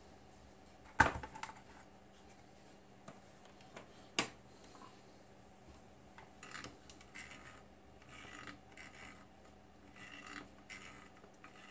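Hands working inside a vintage power supply's open metal chassis: two sharp knocks about a second and four seconds in, the first the loudest, then light scraping and rustling.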